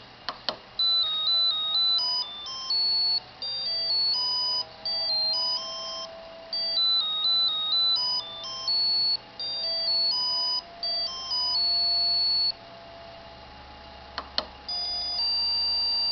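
Monophonic RTTTL ringtone melody played as square-wave beeps by an ATmega8 AVR microcontroller, quick short notes one at a time with a few held ones. The tune stops about three-quarters of the way through, a couple of clicks follow, and the next ringtone begins near the end on a long held note.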